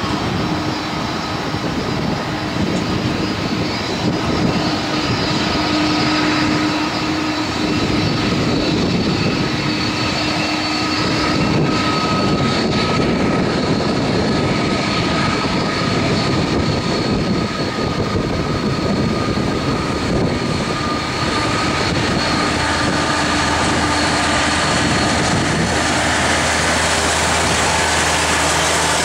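Airbus A330's twin turbofan engines running at low power as the jet taxis, a steady jet whine with several held high tones over a rumble. It grows a little louder and deeper through the second half as the aircraft turns toward the listener.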